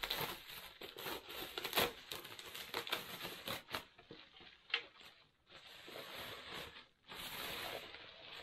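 Plastic bubble wrap crinkling and rustling as it is handled and pulled off a moulded toilet separator bowl, in irregular bursts of crackle with brief pauses about five and a half and seven seconds in.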